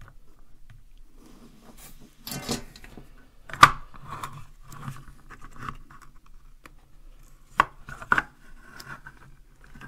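Handling noise from an open plastic power-supply case with its transformer and circuit board inside, picked up, turned over and set down on a wooden desk: rubbing and scraping with several sharp knocks, the loudest about three and a half seconds in and two more near the end.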